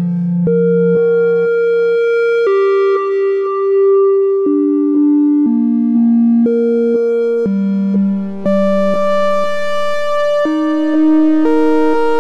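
Wavetable synthesizer oscillator playing a sequenced line of held notes and chords, mostly changing about every half second, some held longer. The tone grows brighter and duller as the skew waveshaping effect amount is turned.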